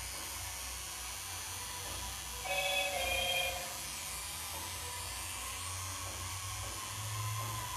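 Tattoo machine running with a steady electric hum as it works the skin. About two and a half seconds in, a brief ringing tone sounds for about a second, louder than the machine.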